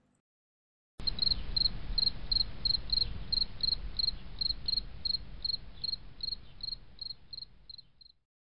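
Cricket chirping steadily, about three short high chirps a second, over a low rumble. It starts about a second in, fades, and stops shortly before the end.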